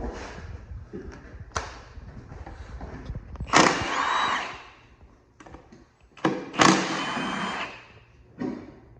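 Metal tools and engine parts clanking and scraping during an engine teardown: a sharp knock, then two longer ringing clatters, and a last short knock near the end.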